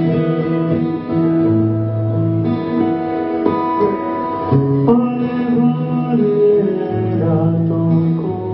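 Background music for a stage dance: held instrumental chords over a low bass line, the notes changing every second or two.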